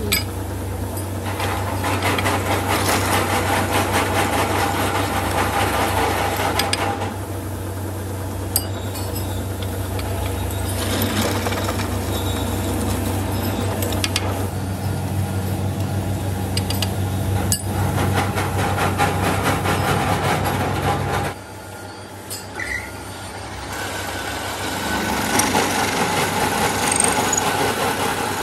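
Metalworking machine in a kick start lever factory: a steady motor hum with repeated few-second stretches of harsh grinding noise over it. The hum cuts off about three-quarters of the way through, and the grinding noise carries on.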